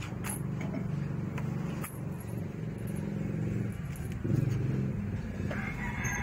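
A steady low engine hum, like a motor vehicle idling, with a couple of sharp clicks in the first two seconds. A higher, wavering sound joins near the end.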